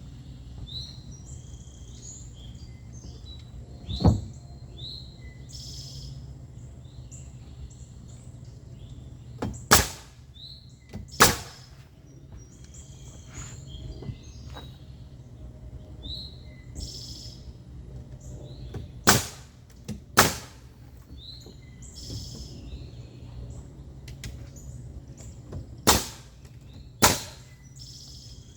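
Loud, sharp strikes of building work, seven in all and mostly in pairs about a second apart, over birds chirping steadily.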